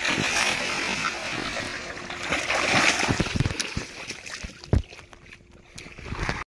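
Water splashing and sloshing, with knocks and rustling, as a short fishing rod falls. The splashing is loudest for the first three seconds, then gives way to a few separate thumps.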